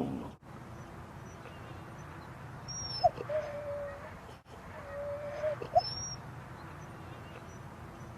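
A dog whining twice, each time a short, steady whine of about half a second, one about three seconds in and one about five and a half seconds in. A brief high squeak comes next to each whine.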